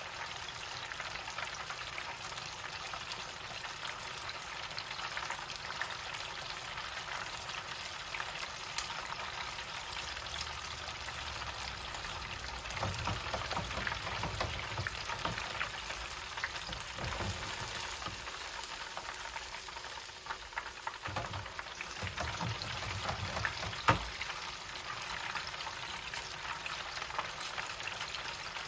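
Chicken deep-frying in oil at 375° in a countertop deep fryer: a steady crackling sizzle. A few low thuds come in the middle, and there is one sharp knock about 24 seconds in.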